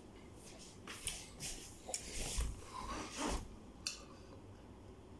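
Handling noises: rustling and scraping with two soft low thumps as a person sits down and picks up a stainless steel cup, then one sharp click a little before the end.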